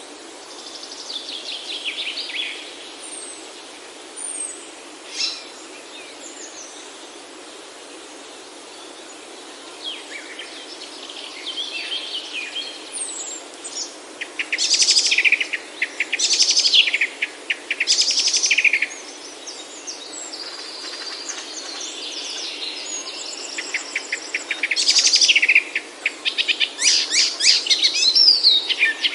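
Several forest birds singing and calling: scattered calls at first, then loud bursts of rapid, repeated notes about halfway through, and fast trilling phrases toward the end, over a steady background hiss.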